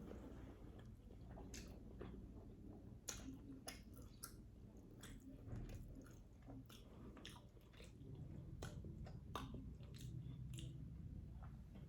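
Close-miked chewing of a mouthful of sausage, with many short wet clicks and smacks of the mouth scattered irregularly through it.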